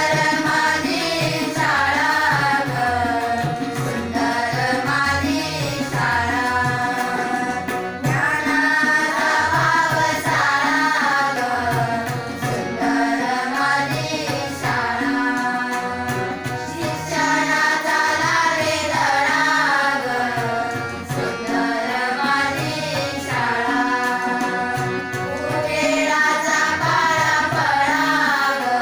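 Girls singing a devotional-style Indian song, accompanied by a harmonium's steady held chords and tabla drumming.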